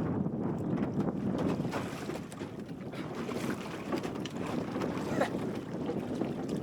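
Strong wind buffeting the microphone, with water splashing and sloshing around a small capsized sailing dinghy.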